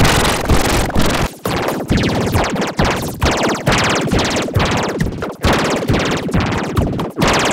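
Children's nursery-rhyme song mangled by heavy audio effects into a harsh, noisy wash with no clear words, pulsing in a steady rhythm.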